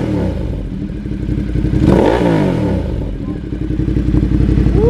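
Ducati V-twin motorcycles on aftermarket race exhausts idling with a lumpy beat, one engine blipped once about two seconds in. A steady held tone starts near the end.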